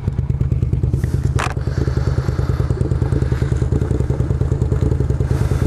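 Suzuki SV650 90-degree V-twin motorcycle engines idling close by, a steady pulsing beat. A short sharp clack about a second and a half in.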